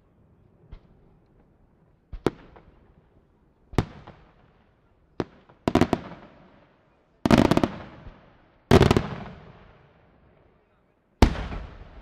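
Aerial firework shells bursting overhead: about eight sharp bangs a second or two apart, the loudest in quick clusters of several reports near the middle, each followed by an echo dying away.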